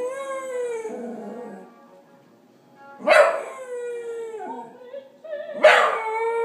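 Scottish terrier howling along with an opera recording playing from a laptop's speakers: long, drawn-out howled notes that start afresh about three seconds in and again near the end, each new one starting loudly.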